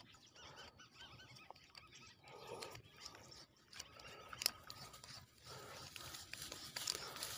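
Faint handling noise close to the microphone: soft rustling with scattered small clicks, and one sharper click about four and a half seconds in.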